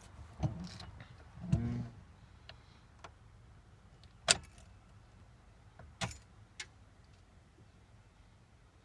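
A few scattered clicks and knocks, the sharpest about four seconds in, with a short creak about a second and a half in. These are handling sounds; no engine is running.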